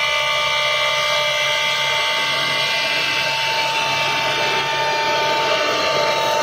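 4-axis CNC router running: its spindle and drives give a steady whine of several tones at once, which shift pitch abruptly right at the end.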